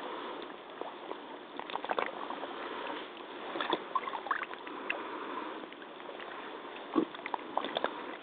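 Muddy water sloshing and lapping as legs in rubber hip waders wade through it, with scattered small splashes and one louder splash about seven seconds in. Heard thinly through a flip phone's microphone sitting at the water's edge.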